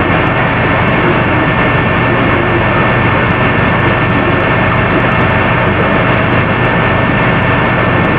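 Loud, steady rushing noise of room fans and air conditioning, heavily amplified, with a low hum and a thin, steady high whine running through it.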